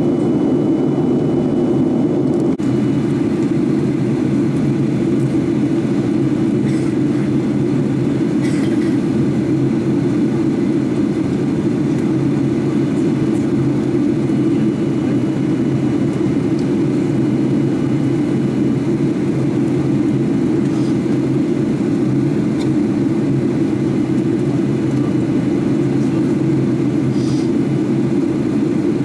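Steady cabin noise inside a Boeing 737-800 in flight: the constant low drone of its CFM56 turbofans and the airflow over the fuselage, unchanging throughout.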